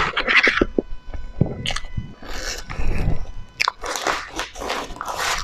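Close-miked eating of cake: a run of irregular bites and chewing, some of them crunchy.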